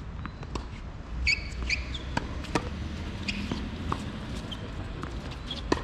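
Tennis play on a court: scattered sharp knocks and taps of the ball and rackets, with a few brief high squeaks in the first half and a louder hit near the end.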